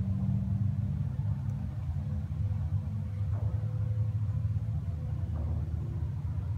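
A low, steady engine rumble that holds an even pitch.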